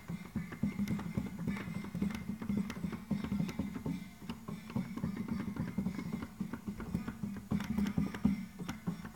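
MIDI-controlled pipe organ playing, its pipes sounding notes over a dense, fast clatter of clicks from the solenoid valve magnets opening and closing the pipes.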